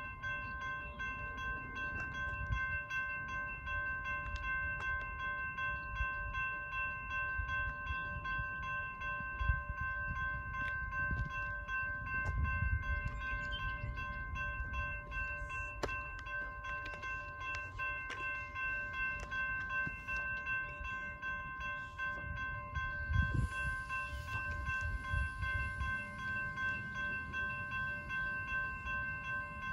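Railroad grade-crossing bell ringing steadily as an unbroken set of tones, over an uneven low rumble.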